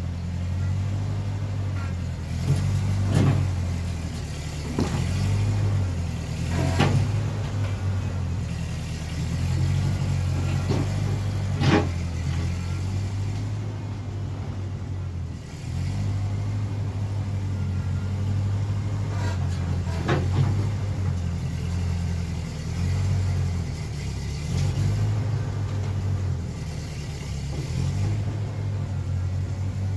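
Tractor engine running steadily, with a few sharp knocks and clanks about 3, 5, 7, 12 and 20 seconds in.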